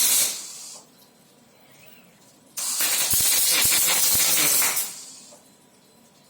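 Robot-guided Fronius arc welding: the arc hisses and crackles in two bursts, one stopping just after the start and another lasting about two seconds from the middle, with quiet between.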